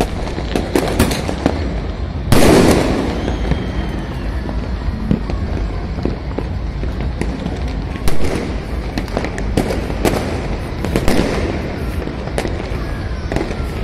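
Fireworks and firecrackers going off all around: a constant scatter of sharp cracks and pops, with two loud bangs, one about two seconds in and one about eight seconds in.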